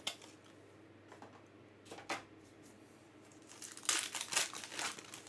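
Trading card pack wrapper crinkling and tearing as it is opened by hand, a dense crackle in the second half, after a couple of sharp clicks from handling the cards.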